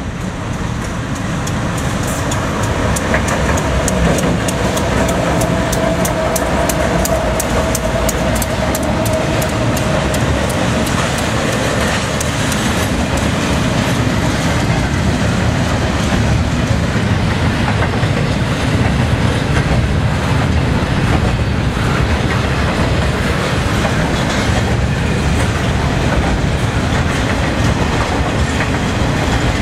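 CSX freight train passing close by. It grows louder over the first few seconds as the locomotives come past, then double-stack container cars roll by with a steady clatter of wheels on the rails.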